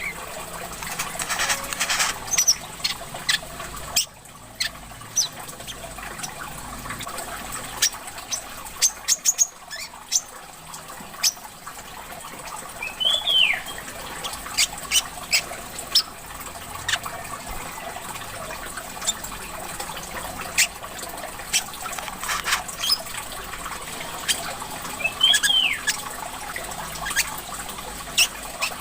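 Small songbirds giving many short, sharp chip notes and a few down-slurred calls over a steady trickle of running water.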